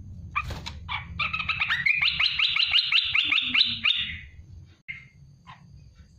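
Olive-winged bulbul calling: a few short notes, then a fast chattering run of about five notes a second lasting some three seconds, and two short notes near the end.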